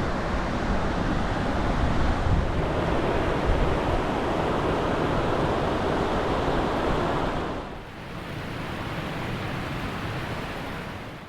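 Steady rushing noise of Takakkaw Falls, a tall cascade of falling water, with wind buffeting the microphone. The noise drops to a quieter level about eight seconds in.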